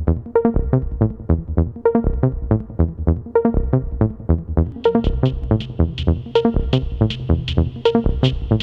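Electronic dance music with a steady, fast beat; a brighter high layer joins about five seconds in.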